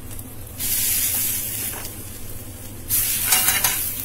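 Hot mustard oil in a frying pan sizzling in two bursts, each about a second long, as steamed semolina balls are set into it one at a time.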